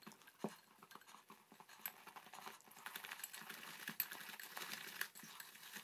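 Wire whisk stirring a stiffening coconut-flour bread dough in a glass bowl: faint, quick, irregular clicks and taps of the wires against the glass.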